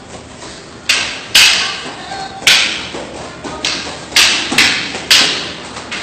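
Escrima sticks striking in a fast sparring exchange: an irregular series of about seven sharp cracks, each dying away briefly in the hall.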